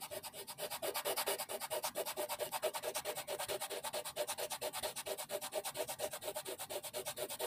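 Outro sound track under the subscribe end screen: a steady, rapid scratchy pulsing, about six beats a second, like a looped shaker rhythm.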